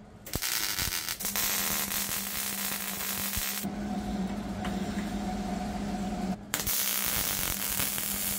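Welding on the thin sheet-steel inner structure of a car body: the welder's arc hissing in three stretches that start and stop abruptly, with a steady hum under the middle one.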